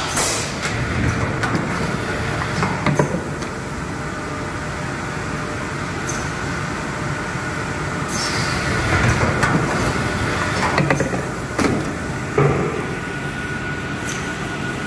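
Automatic PET jar blow moulding machine running: steady mechanical noise broken by clunks and short blasts of compressed-air hiss every several seconds as it cycles.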